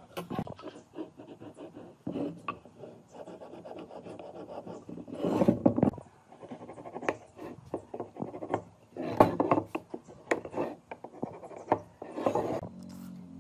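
Hand work on wood: scraping and rubbing strokes with scattered knocks and taps. The loudest scraping comes in three bursts, about five, nine and twelve seconds in.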